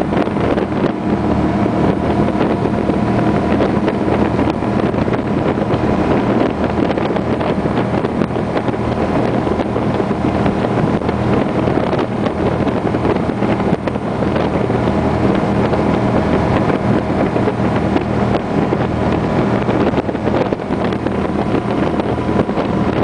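Twin rebuilt 509 big-block V8 inboard engines of a Fountain 32 powerboat running steadily at speed, with wind buffeting the microphone.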